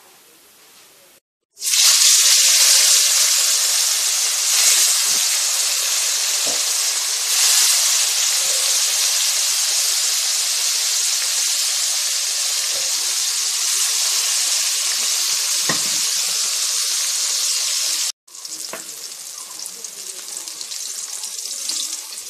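Tilapia pieces sizzling as they shallow-fry in hot oil in a kadai. The loud, steady sizzle starts abruptly after a second of faint hiss. Near the end it is quieter after a cut.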